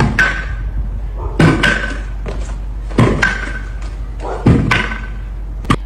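A large pogo stick bouncing: a thud at each landing about every second and a half, each with a short metallic ring from the spring.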